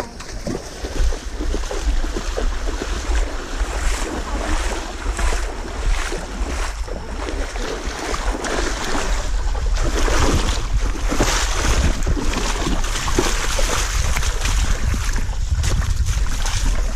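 Water splashing and sloshing as a runner wades through a mud-run water obstacle, with heavy wind rumble on the microphone. The splashing is irregular and grows louder in the second half.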